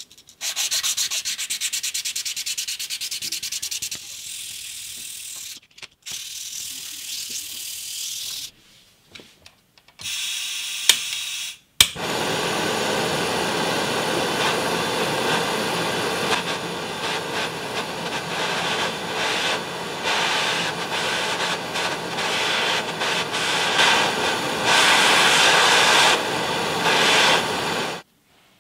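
A small steel blade rubbed back and forth on abrasive paper, a dry scratchy sanding sound in broken stretches. About twelve seconds in there is a sharp click, and then a butane torch burns with a steady hiss, heating the blade, until it cuts off suddenly near the end.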